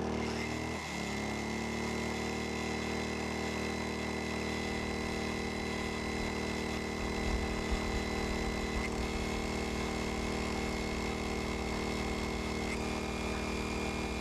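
Predator 2000 inverter generator's engine running under the load of a 1500-watt heat gun. About a second in its note sags and recovers as the load comes on, then it runs steady, with a thin high whine alongside.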